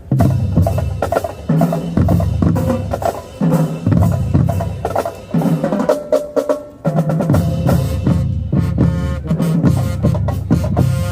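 Marching band drumline playing a loud percussion passage, bass drums and snares hitting hard together. It breaks off briefly a little past halfway, then comes back in.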